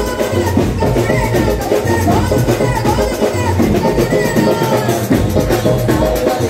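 Band music with a steady drum beat under a gliding lead melody, with no singing.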